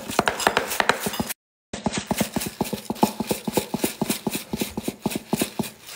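Shaker jar of crushed pepper flakes being shaken hard over a bowl, a fast even rattle of knocks about six a second. It cuts out for a moment about a second and a half in.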